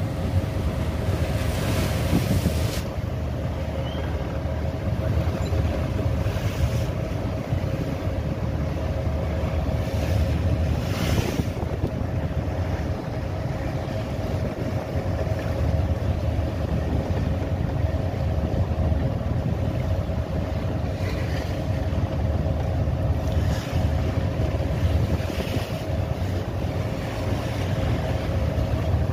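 A boat's engine running steadily with a constant low rumble of wind on the microphone, and waves splashing against the boat every few seconds.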